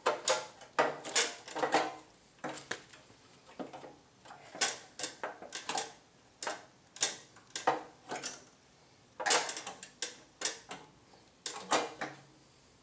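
Chain cover of a Tru Cut P-20 reel mower being slid into place over the drive chains, clanking and knocking against the mower's frame in an irregular series of sharp hits.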